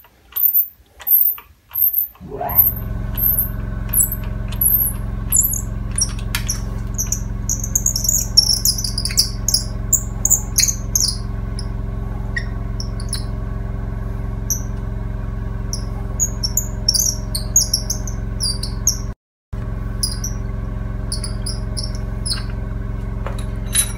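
A workshop machine's electric motor starts about two seconds in, rising quickly in pitch, then runs with a steady hum. High chirps sound over it, thickest in the first half.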